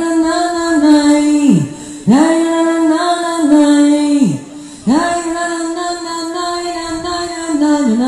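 A woman singing into a stage microphone at a sound check: three long held notes, each swooping up at the start, stepping down slightly, then sliding away at the end.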